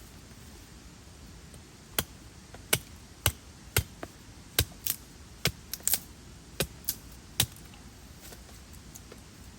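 An irregular series of about a dozen sharp clicks and knocks, a few coming in quick pairs, over a steady low hiss.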